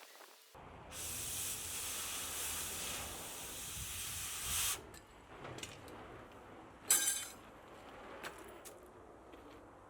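A steady hiss for about four seconds, swelling just before it cuts off, followed a couple of seconds later by a short sharp clank.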